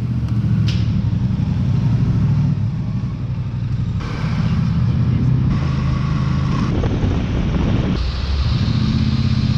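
Motorcycle engine running as the bike rides, heard from a camera mounted on the bike. The sound changes abruptly several times where separate clips are cut together.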